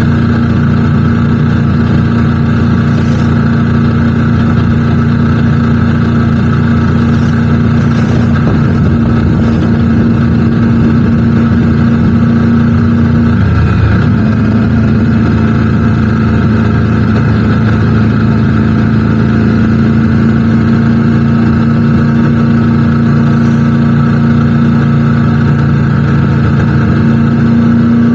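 Triumph Tiger 900 GT Pro's three-cylinder engine running steadily while riding, its note briefly breaking and resettling about halfway through, as at a gear change or throttle change.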